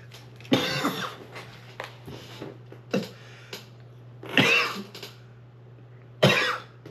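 A man coughing hard in repeated bouts after a hit from a THC vape cartridge, with the strongest coughs about half a second, four and a half seconds and six seconds in, and some throat clearing.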